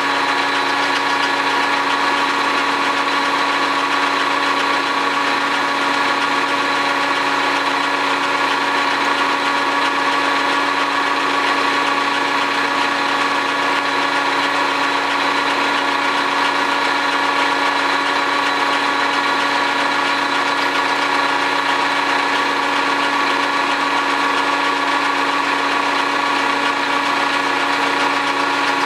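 South Bend metal lathe running at low speed, turning down the shank of a steel drill bit: a steady machine hum and whine from the motor and drive, holding several steady tones with no change.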